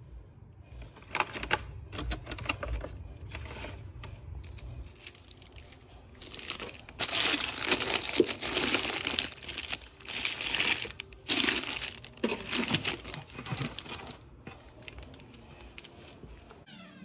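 Paper bread bags rustling and crinkling as they are handled, loudest in the middle stretch.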